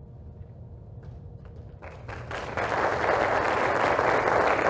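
Audience applause, starting about two seconds in and swelling over the next second, after a low room hum.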